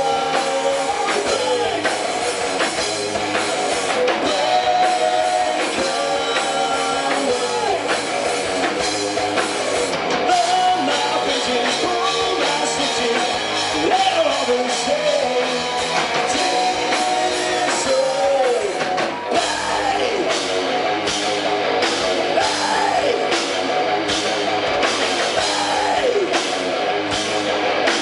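Rock band playing live, with a drum kit keeping a steady beat under guitar and wavering, bending pitched lines.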